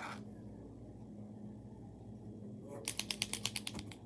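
Posca paint marker being shaken, its mixing ball rattling inside: a quick run of about ten clicks lasting about a second, near the end.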